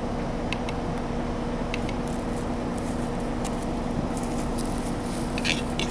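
Male western capercaillie giving its display song: scattered dry clicks, with a closer cluster near the end. A steady low hum lies under them.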